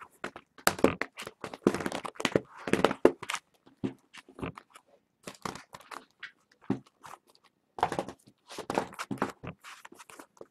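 Irregular crinkling, tearing and tapping of trading-card packs and cardboard boxes being handled and opened, in short uneven bursts with brief pauses between.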